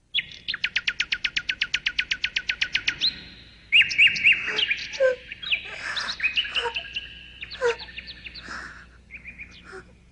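Birdsong: a fast, even trill of high chirps, about ten a second, for two or three seconds, then a run of varied chirps and whistled notes that thins out near the end.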